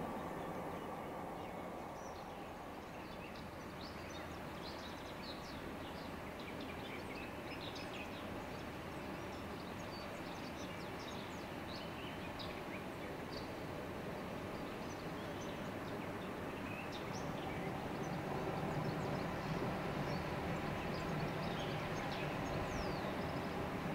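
Distant Intercity train hauled by a DB Class 101 electric locomotive, a steady rumble and hum that grows louder over the last few seconds. Small birds chirp on and off throughout.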